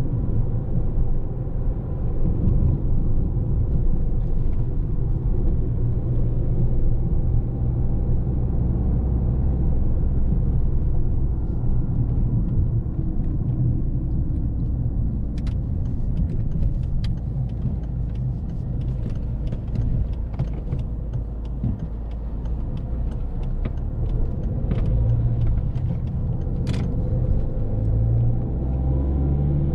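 Volvo S40 1.6D four-cylinder turbodiesel driving, a steady engine and road rumble whose pitch rises and falls a little, with faint scattered ticks through the second half.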